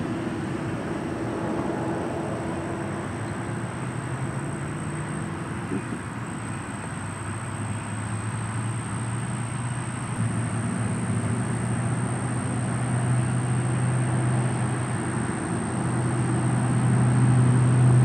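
Road traffic: a motor vehicle's low engine hum, growing louder over the last few seconds as it comes closer.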